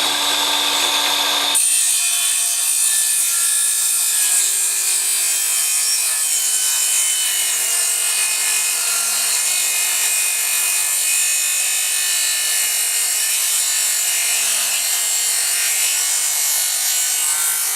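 Craftsman CMCS714M1 cordless miter saw with a 62-tooth Diablo blade running. About a second and a half in, the blade starts cutting slowly through a hard, resin-filled OSB flooring board, and the steady motor whine turns into continuous sawing noise.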